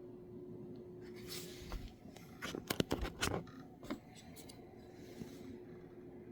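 Hands handling a small diecast model car and its plastic packaging: a brief rustle, then a quick run of clicks and taps, and a few lighter ticks after it.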